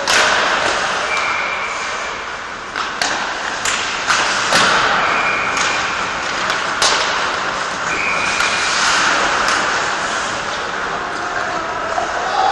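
Ice hockey play on an indoor rink: skates scraping across the ice, with several sharp cracks of sticks hitting the puck and pucks striking the boards, echoing in a large arena.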